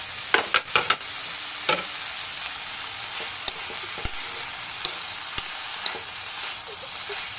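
Vegetables sizzling in a kadhai while being stirred with a steel spoon, which clacks and scrapes against the pan. A quick run of sharp clacks comes in the first second, then single ticks every half second or so over the steady sizzle.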